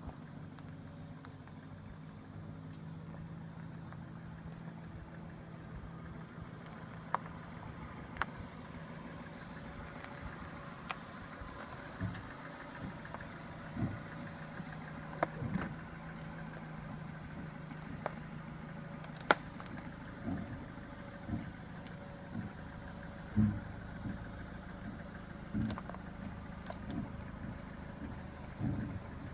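A 2000 Dodge Neon's four-cylinder engine running steadily at low revs as the car crawls over a rough trail. Scattered sharp knocks and low thumps from the suspension and underbody jolting over bumps come more often in the second half.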